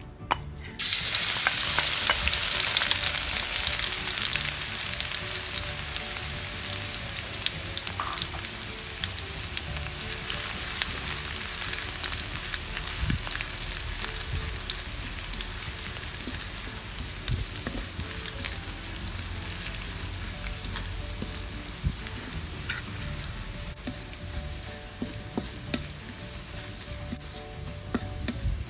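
Chopped garlic hitting hot oil in a stainless-steel wok, bursting into a loud sizzle just under a second in and then frying steadily as it slowly quietens. A wooden spatula stirring it makes scattered light scrapes and taps against the wok.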